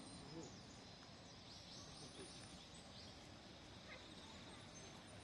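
Near silence: faint outdoor ambience, with a short run of faint high bird chirps about two seconds in.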